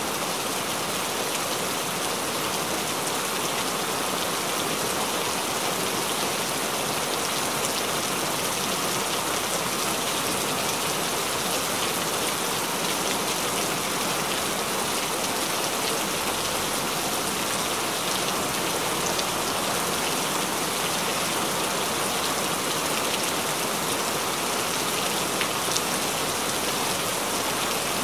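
Steady rain falling: an even, unbroken hiss with faint scattered drop ticks.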